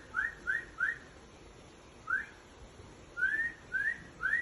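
A series of short whistled notes, each sliding quickly upward: three in quick succession, a single note about two seconds in, then three more near the end.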